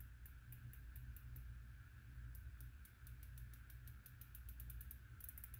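Windage turret of a Steiner S432 prism optic being turned by hand, its detents giving a run of faint, sharp clicks, about four to five a second, coming faster near the end.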